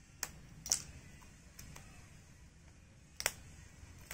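A few sharp clicks and light ticks as a small cardboard product box is handled and its plastic wrap is worked open with a pointed tool. The loudest click comes under a second in, and another about three seconds in.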